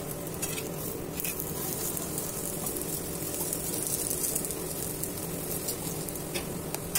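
Ghee sizzling steadily under a methi paratha on a hot tawa while a steel spoon presses and spreads it, with a few light clicks of the spoon against the pan.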